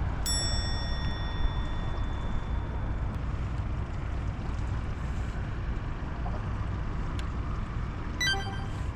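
A single bell-like metallic ding rings out and fades over about three seconds, and near the end a quick run of short bell rings follows. Under both is a steady low rumble of wind and water.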